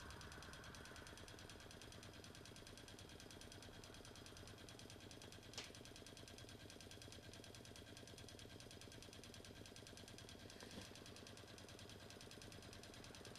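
Small Wiggers model Stirling hot-air engine running: a faint, fast, even mechanical clatter, with one sharper click about halfway through.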